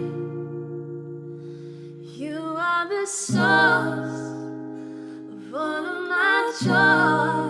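A woman singing a slow worship song over acoustic guitar. Two sung phrases are each opened by a struck chord, about three seconds in and again near the end, with the guitar ringing on between them.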